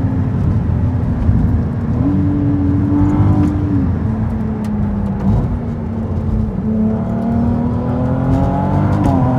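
Ferrari 296 GTB's twin-turbo V6 heard from inside the cabin while driving at moderate revs. Its pitch steps up about two seconds in, drops back near four seconds, then climbs slowly through the second half.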